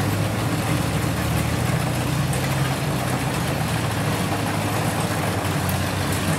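Kubota DC-70 rice combine harvester running steadily in the field, its diesel engine giving a constant low hum under an even mechanical noise.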